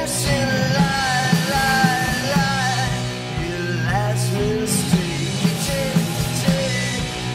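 Rock band playing: a man singing over electric guitar and drums, with regular drum hits.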